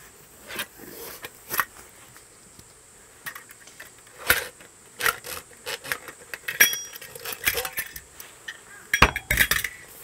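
Metal parts of a Minimal Works Crown camping gas stove clinking and knocking as it is handled and turned over, in scattered sharp clicks, loudest about four seconds in and in a quick cluster near the end.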